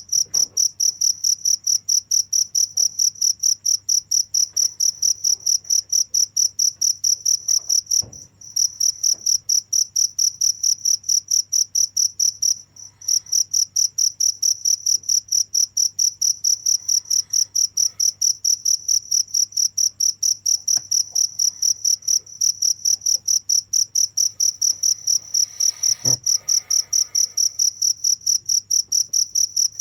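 Cricket chirping steadily in a fast, even rhythm of about three high-pitched chirps a second, broken by two brief pauses.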